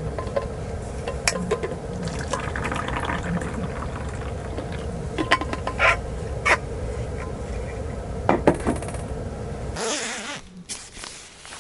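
Hot drink poured from a steel thermos into a cup, with sharp clinks of the cup and thermos against the table, over a steady low background noise. Near the end a short rush of noise, after which the low background drops away.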